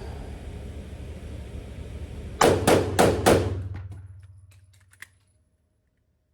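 Glock 43X 9mm pistol firing four quick shots, about a third of a second apart, each echoing and fading off. A small click follows a couple of seconds later.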